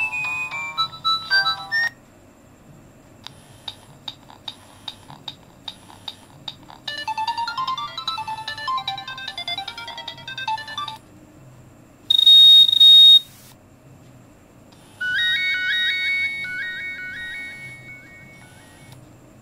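A Nokia 7650 playing short previews of polyphonic MIDI ringtones from its speaker, one after another, with brief pauses as the tone list is scrolled. In turn come the end of a melody, a ticking rhythmic pattern with high beeps, a busier melody, a loud one-second burst of noise with a steady high tone about twelve seconds in, and then a repeated rising figure of notes.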